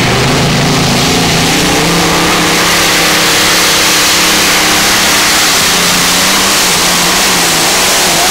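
Multi-engine Modified pulling tractor's supercharged engines running flat out while pulling the sled. The engine note climbs in pitch over the first second or two, then holds steady and loud.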